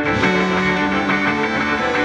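Instrumental surf-rock-styled jazz-fusion band playing live: electric guitar, keyboards, electric bass and drum kit together, with a steady beat and held notes.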